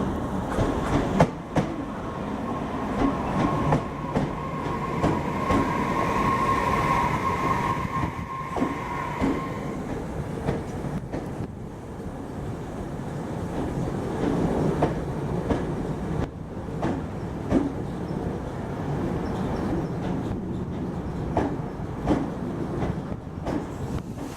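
Tobu 60000 series electric train pulling into a station platform and slowing, its wheels clacking over rail joints, with a steady high tone for several seconds in the first half.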